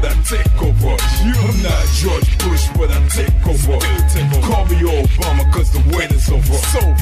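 Hip hop track: a male rapper's verse over a heavy bass beat and quick hi-hats.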